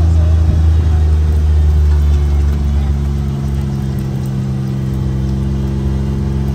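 A vehicle engine running steadily at a low pitch; about two and a half seconds in its tone shifts and it eases off slightly.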